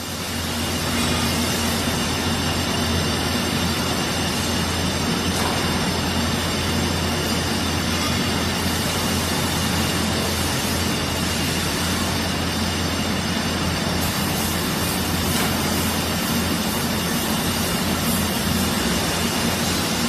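Steady din of a factory floor: machinery noise with a low hum underneath, unchanging throughout.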